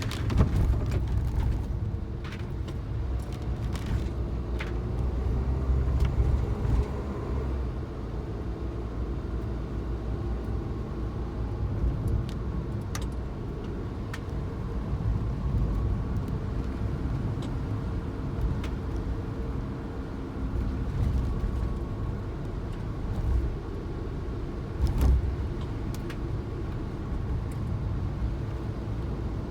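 Suzuki Jimny on the move: a steady low rumble of engine and road noise, with faint engine tones that drift up and down in pitch. A few short knocks and clicks come through, the loudest about 25 seconds in.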